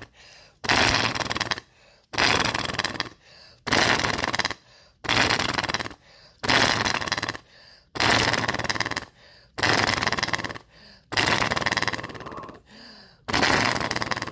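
Forceful exhalations through a handheld flutter valve, about nine in a row, each about a second long with a fast rattling flutter as the valve vibrates under the breath. The vibrating back-pressure is meant to loosen mucus in the lungs of someone with pneumonia.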